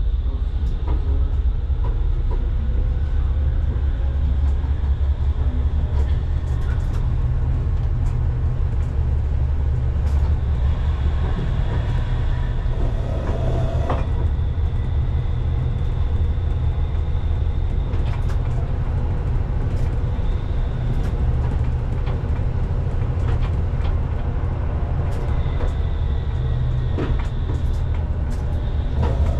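Pragoimex T3R.EV tram running along the track, heard from inside the cab: a steady low rumble with scattered clicks from the wheels and rails. A thin high whine comes and goes.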